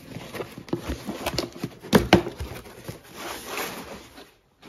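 Cardboard product box being opened by hand: scraping and rustling of cardboard, with two sharp snaps close together about two seconds in as the lid comes free, then a longer rustle of the flaps and contents.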